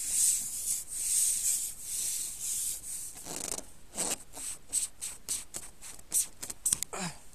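Long carbon fishing pole being drawn back hand over hand, its sections rubbing through the grip in regular swishes about twice a second. This gives way after about three seconds to a scatter of short clicks and taps as the pole is handled.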